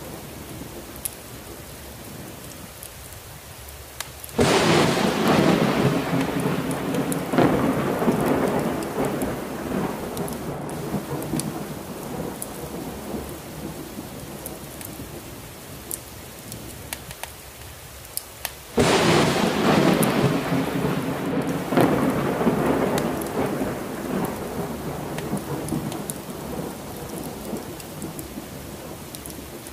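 Steady heavy rain, with two sharp claps of thunder, about four seconds in and again about fourteen seconds later, each followed by a long rumble that slowly dies away.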